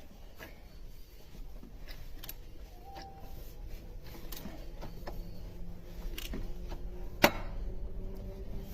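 Mercedes M278 V8 running, a low steady hum with irregular metallic ticks and clicks and one sharp knock about seven seconds in. The knocking is taken for the camshaft adjusters (VANOS).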